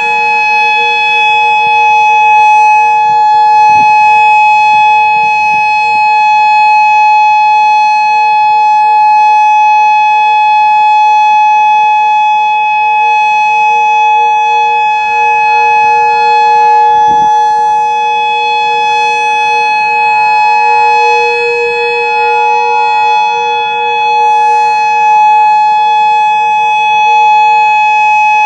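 Modulator 4016 electronic outdoor warning siren sounding its steady alert tone during a test. The tone does not rise or fall: two pitches sound together, held loud and unchanging throughout.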